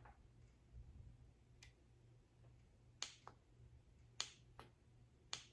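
Faint, sharp plastic clicks of the buttons on a handheld Sonic Refresher facial device being pressed, about six clicks in all, some in quick pairs like a press and release.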